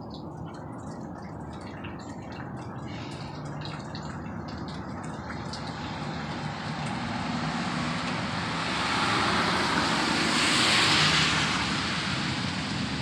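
Loud, unexplained noise coming from the sky: a steady rushing rumble with a low hum underneath that swells, is loudest about ten seconds in, then eases a little. Faint drip-like ticks sound early on.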